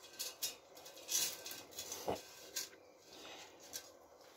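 Eating sounds close to the microphone: a scatter of faint mouth smacks and clicks while chewing.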